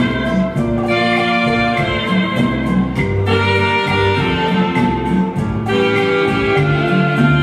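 Slow rumba dance music, a melody of long held notes changing every second or so over a light, steady beat.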